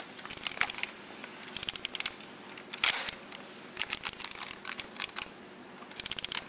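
1972 Konica Autoreflex 35mm SLR being wound on after loading film: about five bursts of rapid ratcheting clicks from the film-advance lever, with one louder clack about three seconds in as the shutter fires, advancing the film past the blank leader frames.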